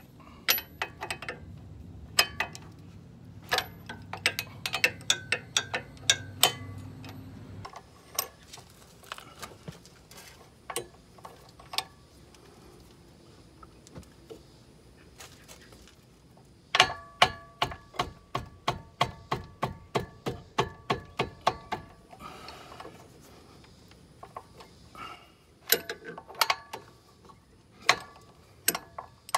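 Hand socket ratchet clicking as bolts are turned out on the front brake and hub assembly, in short bursts with a long run of quick clicks, about four a second, in the middle. A low steady hum sits underneath and stops abruptly about eight seconds in.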